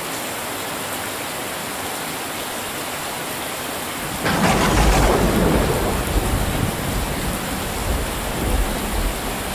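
Heavy rain falling steadily on corrugated metal roofs, with a clap of thunder about four seconds in that rumbles on and slowly fades.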